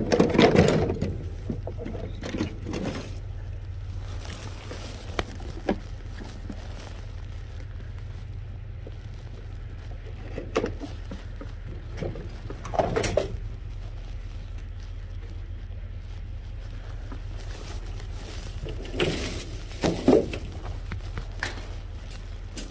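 Junk being handled and shifted in a dumpster: scattered rustles, scrapes and clatters of plastic, cardboard and wood, loudest near the start with more clatters around the middle and near the end, over a steady low hum.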